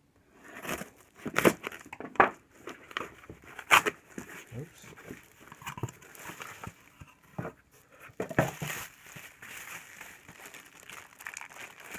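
A white cardboard shipping box being opened by hand and its packaging handled: a run of sharp scrapes, taps and rustles. Later, a plastic bubble-wrap bag crinkles as it is fumbled at and pulled open.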